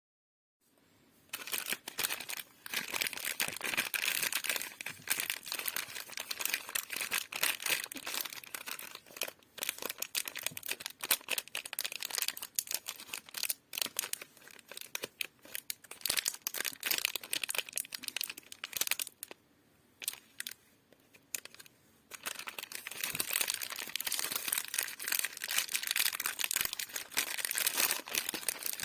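Lollipop wrappers and sweet packaging being handled and torn open: a dense run of quick crackles, with a quieter lull about two-thirds of the way through.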